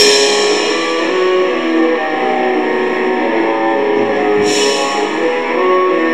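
Raw, lo-fi black metal demo: a guitar plays a slow melody of held notes with almost no bass. A brief wash of cymbal noise comes in about four and a half seconds in.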